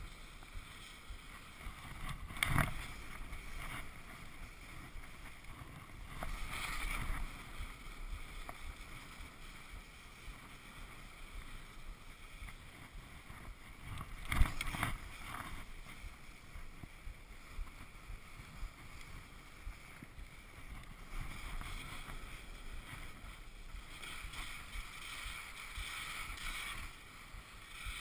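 Skis turning down a steep snow couloir: swishing and scraping of the skis on snow that swells with each turn, over wind on the microphone. A couple of sharp knocks cut through, the loudest about halfway through.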